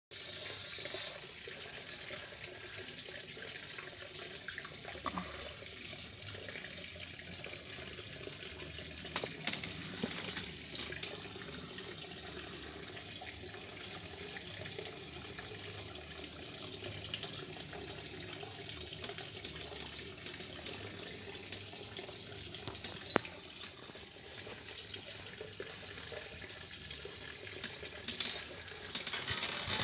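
Steady trickle and splash of water moving in a planted aquarium with a cascading waterfall feature, with a faint steady high whine throughout. There is one sharp click near the end.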